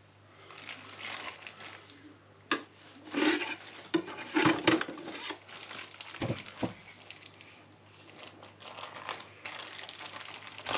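Plastic crinkling and rustling in irregular bursts, with a few sharp clicks, as a cooked homemade luncheon-meat log is handled and unwrapped from its plastic cooking bag.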